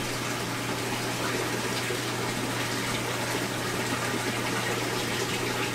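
Steady rush of running water from aquarium filtration, over a steady low hum.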